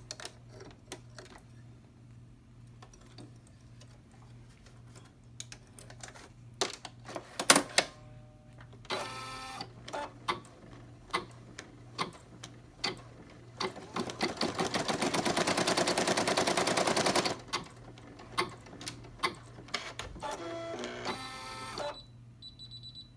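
Home embroidery machine stitching a small circle. Its needle goes in a fast, even rattle for about three seconds in the middle. Short motor whirs come before and after, and a short beep sounds near the end. The first several seconds hold scattered clicks and knocks of hands at the machine.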